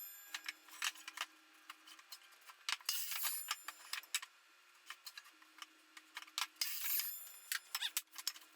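Wooden lumber pieces being handled and set down in a workshop: scattered knocks and clicks, with three short scraping, rustling bursts about three to four seconds apart.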